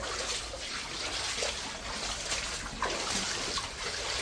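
Water trickling and splashing steadily, with faint irregular ticks.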